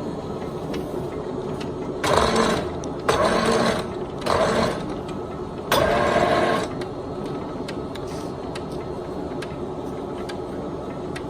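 POREBA TPK90 engine lathe running steadily, with four short bursts of louder mechanical whine between about two and seven seconds in as its power rapid traverse drives the carriage, cross slide and compound.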